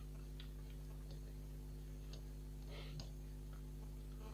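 Faint, scattered clicks and taps of a video card and its small screws being handled and fastened onto a laptop motherboard, a cluster of them near the three-second mark, over a steady low hum.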